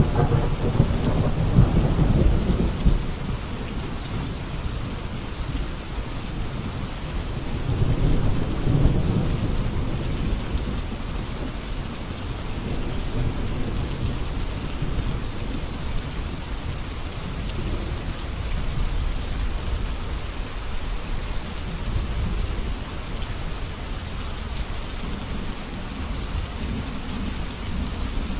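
Steady heavy rain with low thunder rumbling in the background, swelling at the start and again about eight seconds in.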